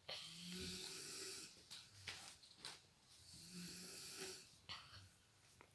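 A woman snoring quietly: two long snores about three seconds apart, each carrying a low drone, with a few short clicks in between.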